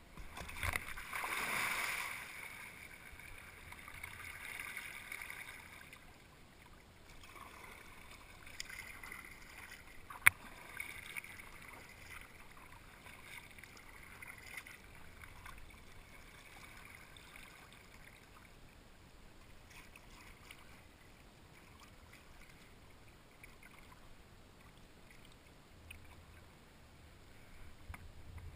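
Kayak paddle strokes and water splashing and lapping against a kayak's hull on flat water. A louder rush of splashing comes in the first couple of seconds, and a single sharp knock about ten seconds in.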